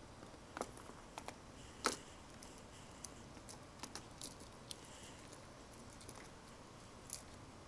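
Faint, scattered small clicks and taps of hands handling jumper wires and a clear plastic parts case beside a solderless breadboard. The sharpest click comes about two seconds in.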